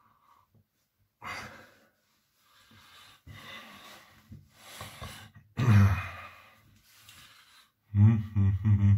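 A man's breathing: several heavy, breathy exhales and a voiced sigh about six seconds in, then a short burst of voice near the end.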